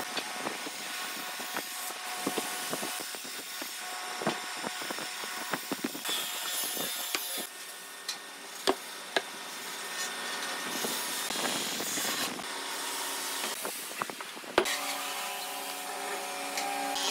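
Pencil scratching along wooden boards during marking out, with a steel ruler and square clicking and sliding on the wood, over a steady hum.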